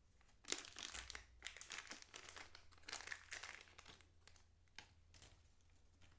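Packaging crinkling and rustling as it is handled and pulled open, in irregular bursts from about half a second in until near the end.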